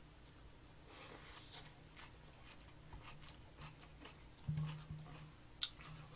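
Faint eating sounds picked up by a microphone close to the table: scattered clicks and taps of chopsticks and dishes, and chewing of crispy fried chicken. A thump with a short low hum comes about four and a half seconds in.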